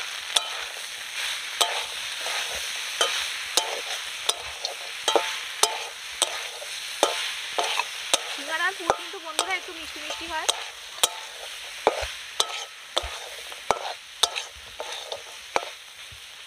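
A flat metal spatula stirs and scrapes a potato, cauliflower and chickpea filling in a metal karahi, giving repeated sharp clinks against the pan, about two a second, over a steady sizzle of the filling frying.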